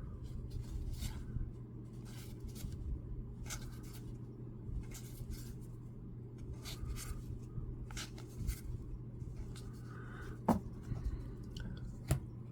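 Baseball trading cards being slid and flipped through by hand, a soft swish every second or so, with two sharper clicks near the end. A steady low hum runs underneath.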